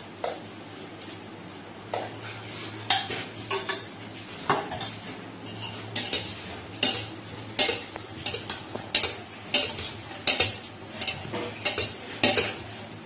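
A spoon knocking and scraping against the inside of a stainless steel pot as a bhel mixture is stirred, making irregular metallic clinks one after another.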